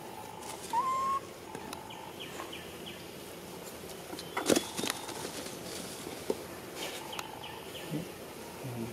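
Outdoor forest ambience with repeated short bird chirps and a brief rising whistle about a second in. A single sharp knock about halfway through is the loudest sound.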